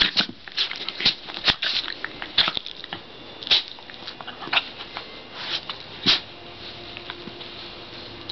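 A Shiba Inu and a beagle mix play-fighting: an irregular run of short scuffling and huffing noises that thins out over the last couple of seconds.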